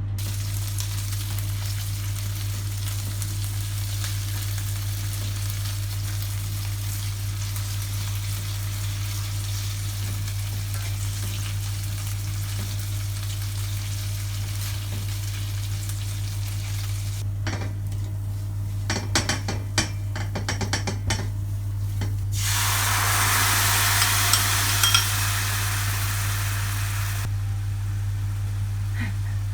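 Prawns frying in a hot pan with a steady sizzle over a constant low hum. From about two-thirds of the way through, a metal utensil clinks and scrapes against the pan, then the sizzling grows louder for several seconds.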